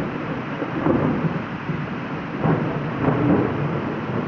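Heavy rain pouring steadily in a storm, with low rumbling surges that rise and fall every second or so.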